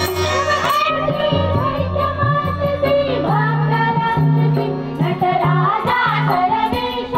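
Women's group singing a devotional bhajan in unison over a harmonium drone, with tabla and small hand cymbals keeping a steady beat.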